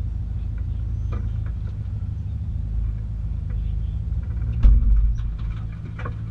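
Rally car engine idling with a steady low rumble, heard from inside the cabin. About three-quarters of the way through comes one sharp knock, followed by a few small clicks.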